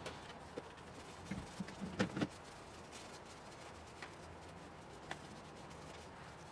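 A short cluster of light clicks and knocks about two seconds in, then a few single faint clicks, from parts and tools being handled at an engine bay, over a faint steady background.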